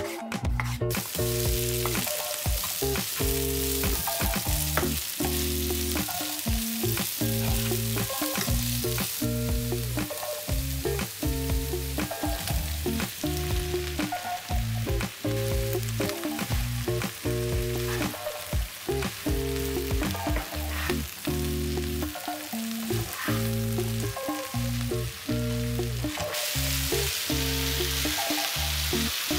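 Diced eggplant, zucchini and peppers sizzling in hot oil in a frying pan, with the sizzle starting about a second in, over background music.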